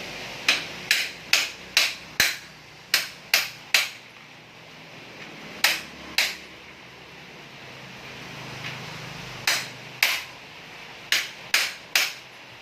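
Hammer blows during bicycle repair: about fifteen sharp strikes in short runs of two to five, the first run fast at roughly two strikes a second, with pauses of a few seconds between runs.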